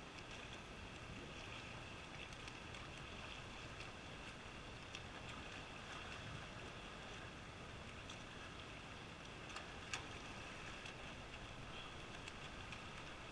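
Faint, steady splashing of swimmers stroking through the pool lanes, with a single sharp click about ten seconds in.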